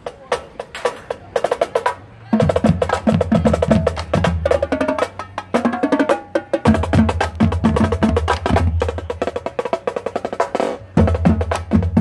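Marching band drumline playing a cadence on the march: snare drums, tenor drums and bass drums. It starts with only light sharp clicks for about two seconds, then the full drumline comes in with heavy bass drum hits, dropping out briefly twice.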